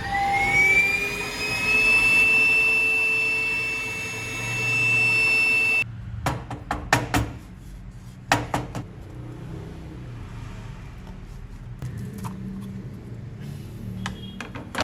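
Small electric motor of a homemade mini power tool spinning up with a rising whine, running steadily and cutting off suddenly about six seconds in, followed by a few sharp clicks and knocks.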